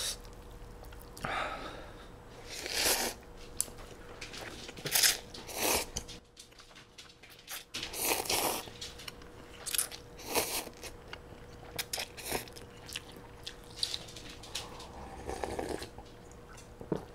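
A person eating green-laver (parae) noodle soup: repeated short slurps of noodles and chewing, and near the end sips of broth drunk straight from the paper cup.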